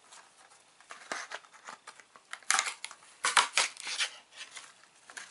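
Cardboard Pocky box being torn open, with paper rustling and a few sharp tearing rips, loudest between about two and a half and four seconds in.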